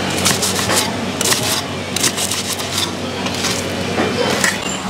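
Serrated knife sawing through a stack of crisp toasted bread on a wooden cutting board: several short crunching, scraping strokes over a steady low hum.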